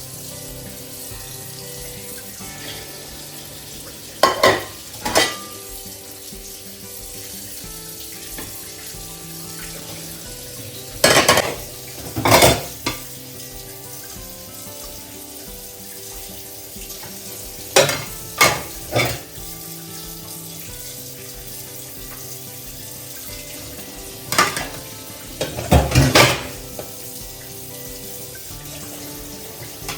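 Dishes and utensils clattering in short clusters of knocks, over a steady hiss, with soft background music.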